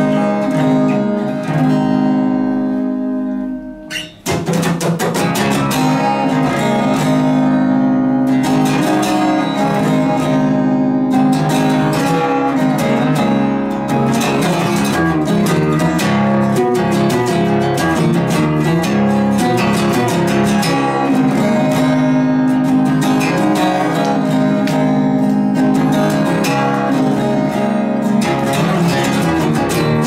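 Solo steel-string acoustic guitar played fingerstyle. A held chord rings and dies away about four seconds in, then a busy passage of rapid plucked notes with sharp attacks runs on.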